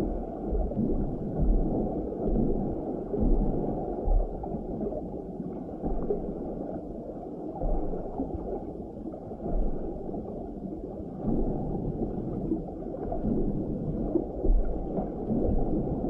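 Scuba diver's exhaust bubbles gurgling and rumbling, heard muffled underwater, in uneven surges every second or two.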